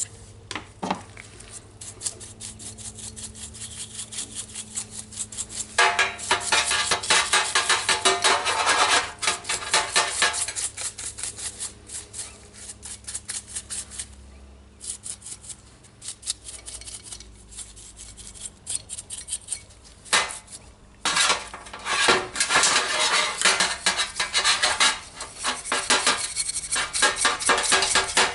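A small tool scraping and scratching rapidly on a power-tool trigger switch in bursts, to clean the switch and its contacts.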